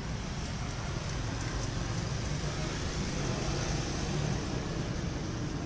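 Steady road traffic noise from cars and motorcycles passing on a busy multi-lane road close by.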